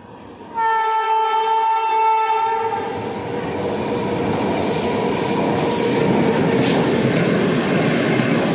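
Electric locomotive sounds one long horn blast starting about half a second in, then the express passenger train runs through the station at speed: a steady rush of passing coaches with sharp wheel clicks over the rail joints.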